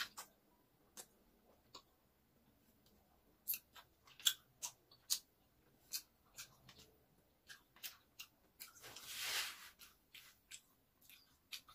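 Close-up eating of orange segments: scattered sharp wet mouth clicks and smacks as they are chewed, with one longer hissing sound lasting about a second, about nine seconds in.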